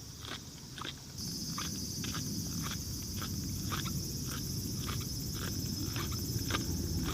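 Footsteps at an even pace of about two a second, with a steady high hiss that starts about a second in.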